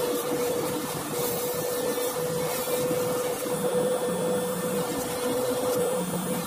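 Small electric polishing tool running steadily, its motor giving a constant hum.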